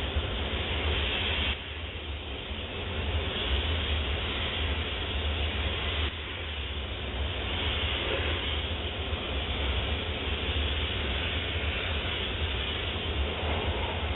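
Optima DMF steam cleaner running with a steady low hum while its wand blows steam with a loud hiss. The hiss drops away briefly about a second and a half in and again around six seconds, then comes back.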